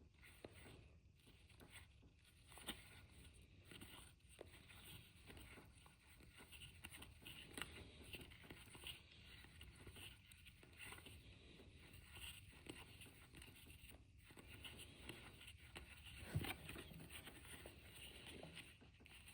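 Faint rustling and soft ticks of baseball trading cards being slid and flipped through by hand, with a few slightly louder clicks now and then.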